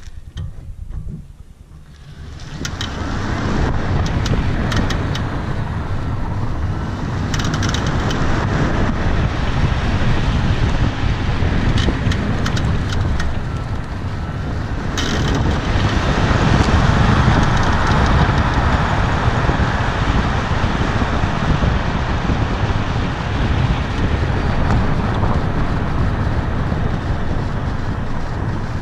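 Tesla Model S on the move, steady road and wind noise, with several sharp clicks scattered through the first half: the clicking/creaking the owner hears when accelerating and when regenerative braking first engages.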